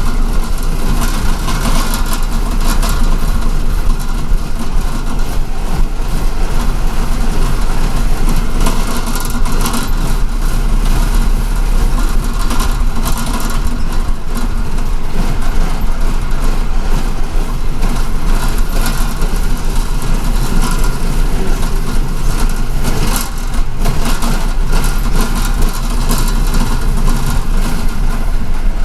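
MTA city bus running, heard from inside the cabin: a steady engine and road drone with a strong low rumble and frequent small rattles.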